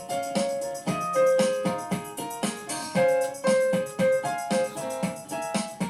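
Instrumental music: a keyboard, piano-like, playing a bouncy melody over a steady beat.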